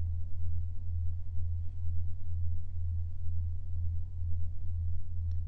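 A steady, deep low-pitched drone, one sustained tone that wavers slightly in strength, with nothing else over it.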